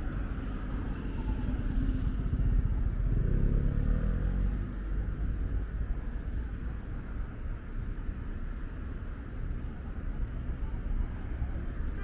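Street traffic: a steady low rumble, with one vehicle's engine passing close by about three to five seconds in.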